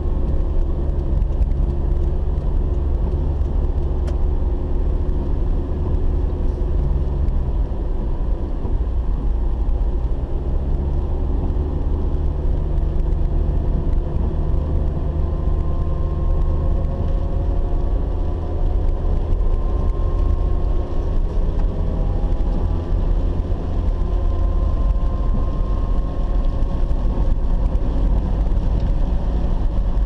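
Car engine and road noise heard from inside the cabin while driving on a wet road: a steady low rumble, with faint engine tones that rise gently through the second half as the car speeds up.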